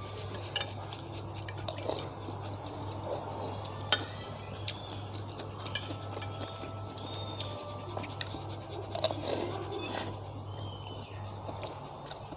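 Metal utensils clinking and scraping against a ceramic bowl while noodles are eaten, with chewing sounds. Scattered short clinks, the sharpest about 4 s in and around 9–10 s, over a steady low hum.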